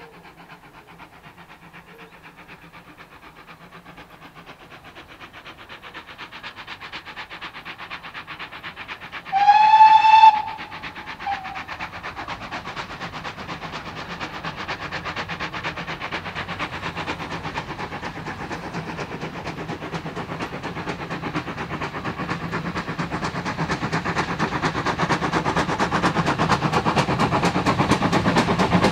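Steam locomotive sounding its whistle in one short blast of about a second, followed by a brief second toot, as the train's rapid rhythmic working and wheel noise grow steadily louder.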